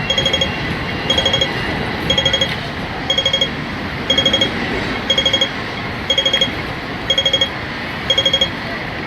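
Hong Kong pedestrian crossing's audible traffic-light signal: short bursts of about five rapid beeps, repeating about once a second, over steady background noise.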